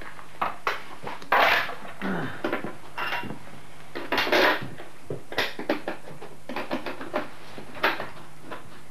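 Metal clinks, knocks and scrapes of hands and tools working on a KTM enduro motorcycle's rear wheel at the swinging arm, with two louder scraping clatters about a second and a half in and again just after four seconds.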